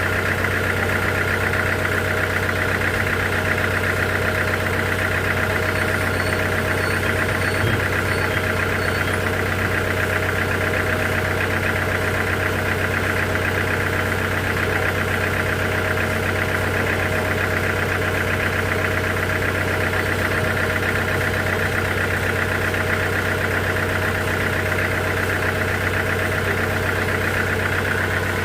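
Sawmill machinery running steadily, an unchanging engine-like drone with no breaks.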